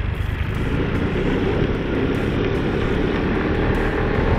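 Aprilia SR 150 scooter riding along at a steady speed: its single-cylinder four-stroke engine running with a dense, steady rumble.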